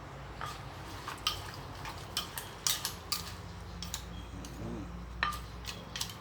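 A spoon clicking and clinking against a dish in irregular strokes as a wet som tum salad is mixed, some strokes ringing briefly.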